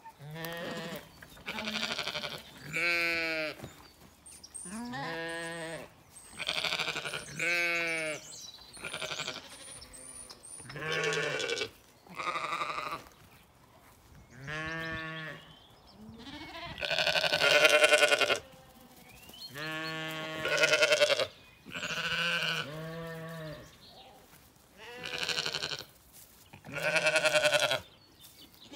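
Zwartbles sheep bleating: a string of about fifteen separate calls, one to two seconds apart.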